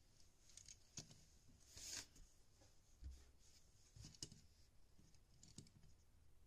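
Faint handling sounds of a small metal diecast model car: a few light clicks and taps as it is turned in the fingers and set down on a tabletop, with a brief soft rustle about two seconds in.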